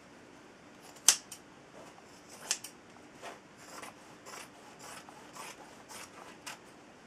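Scissors snipping through pillowcase fabric, a run of short cuts about two a second, the sharpest and loudest about a second in.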